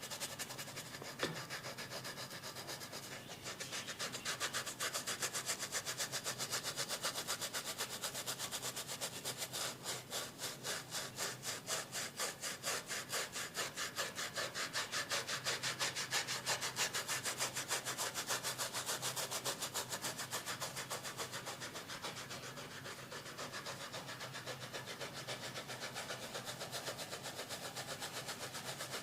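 Rapid, rhythmic rubbing strokes of a barber's massage, several strokes a second at a steady pace, easing off in the last few seconds.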